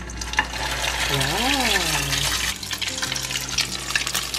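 Spoonfuls of sardine torta mixture frying in hot oil in a nonstick pan, the oil sizzling and crackling steadily.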